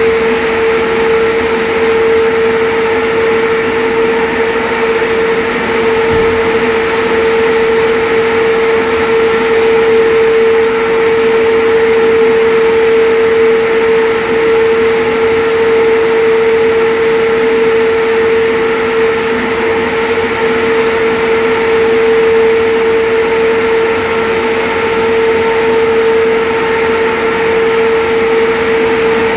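Steady, loud machinery hum with one strong constant tone and fainter higher tones over a noisy drone, unchanging throughout.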